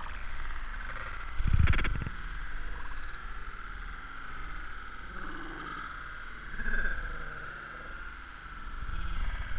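Water sloshing and splashing around a camera held at the surface of a pool, heard muffled, with a loud thump about one and a half seconds in as water hits the camera. A steady high droning tone runs underneath.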